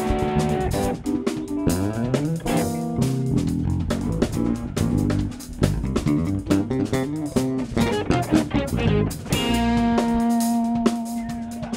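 Live band playing a funk tune, with five-string electric bass and drum kit: quick runs of notes over a steady beat, settling on a held chord near the end.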